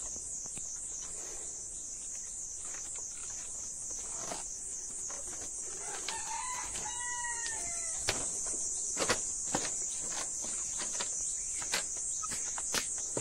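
A rooster crows once, about six seconds in, over a steady, fast-pulsing insect chorus. Scattered sharp clicks come in the second half.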